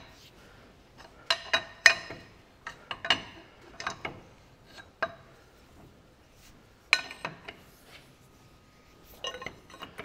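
Irregular sharp metallic clinks, about seven in all, as a steel ring spanner and the steering arm are handled on a tractor steering pedestal's shaft and nut.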